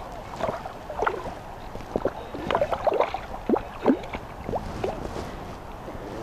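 Lake water gurgling and sloshing around a camera held at the surface, with a run of quick plops and small splashes that are busiest in the middle, over a low rumble.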